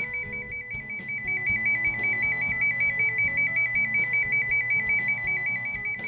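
Tone-tracing probe's speaker sounding the toner's trace signal: a steady, rapid high two-note warble, showing that the probe is picking up the tone from the cable.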